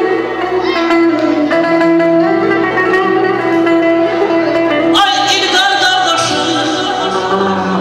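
Live Azerbaijani wedding-band music: a man singing through a microphone over amplified electric guitar and backing instruments.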